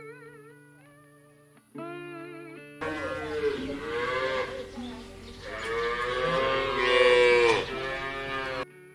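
Plucked guitar music, then about three seconds in a cow moos twice in long calls, the second one louder; the mooing cuts in and cuts off abruptly, replacing the music.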